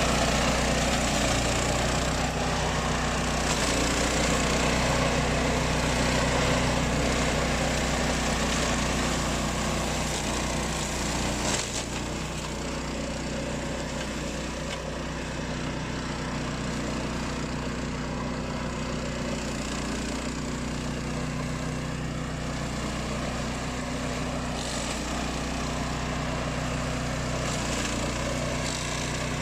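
Engine of a remote-control flail mower running steadily, with a brief knock about twelve seconds in, after which it is a little quieter.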